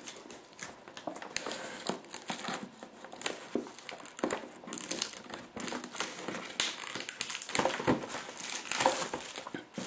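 Clear plastic shrink wrap on a cardboard box crinkling and crackling as fingers pick at it and tear it open, in quick irregular crackles.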